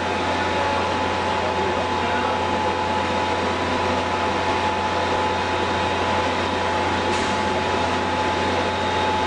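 Rendering plant machinery running steadily: a continuous low hum with a constant mid-pitched whine on top.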